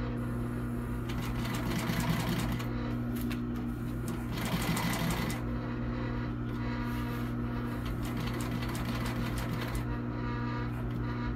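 Juki LU-563 walking-foot industrial sewing machine stitching, a rapid even clatter of needle and feet strokes over a steady motor hum. The stitching runs faster and louder in two stretches, about two seconds in and again around four to five seconds.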